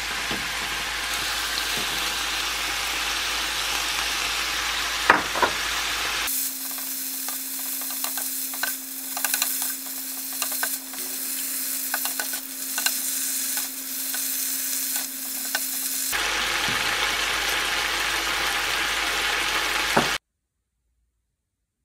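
Beef and soybean sprouts sizzling in a nonstick frying pan while a wooden spatula stirs and scrapes them, with a couple of sharp knocks about five seconds in. For a stretch in the middle the sizzle is quieter, with a steady low hum and many short spatula taps, then the sizzle returns and cuts off suddenly near the end.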